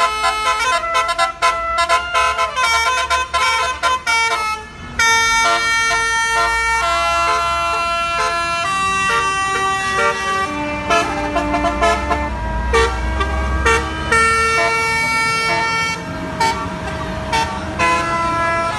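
Bus's basuri telolet horn playing a tune: several horn tones held together, stepping from note to note with short gaps between phrases. A low engine rumble runs underneath and swells for a moment about two-thirds of the way through.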